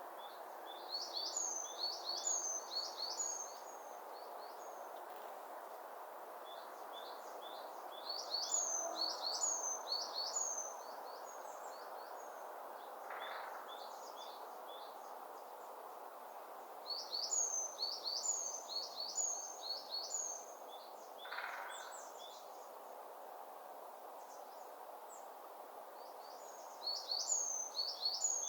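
A songbird singing in four bouts, each a run of quick, high, downward-sweeping notes lasting two to four seconds, about nine seconds apart. A steady rushing hiss runs underneath.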